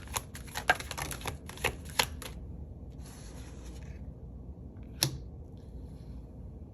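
Tarot cards being handled: about two seconds of quick card clicks as the deck is shuffled, a brief soft rustle, then a single sharp snap of a card about five seconds in.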